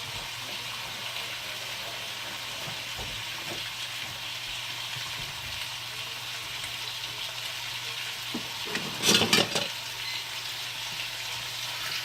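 Sliced chicken sizzling in hot sesame oil in a stainless steel wok, a steady frying hiss. About nine seconds in comes a brief, louder cluster of knocks and clatter.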